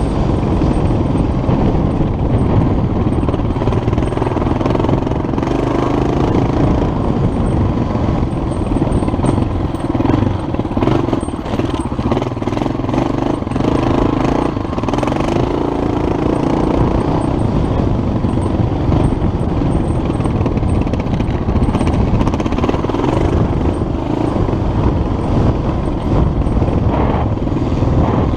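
Vintage dirt bike's engine running under way along a bumpy dirt track, its pitch rising and falling with the throttle, with scattered knocks from the rough ground and steady rumble from the ride over the on-board microphone.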